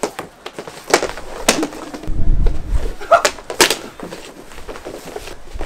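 Mini hockey sticks clacking against the mini puck and the hard rink floor in scattered sharp clicks during play, with a low rumble about two seconds in.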